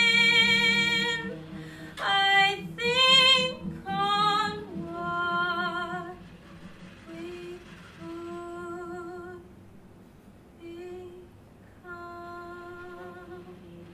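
A woman singing a wordless phrase of separate held notes with vibrato, loud at first and softer after about six seconds, over a low steady hum.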